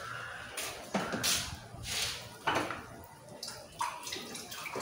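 Black-eyed pea fritter batter (akara) sizzling and crackling in hot frying oil in a frying pan as a spoonful of batter goes in, with a steady hiss and several irregular louder bursts of spatter.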